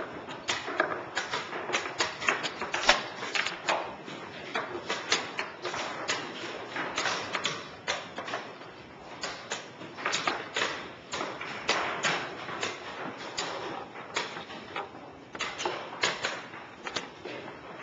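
Rapid, irregular clicking and clacking of chess pieces set down on the board and a chess clock being punched, move after move, in a blitz game.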